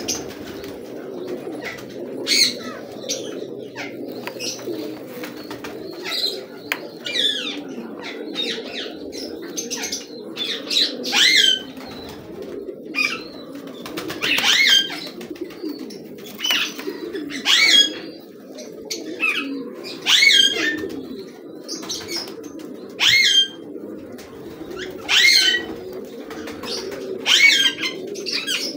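A flock of domestic pigeons cooing in a constant low murmur, with wings flapping now and then. Over it a louder, high-pitched bird call with a bending pitch repeats every two to three seconds.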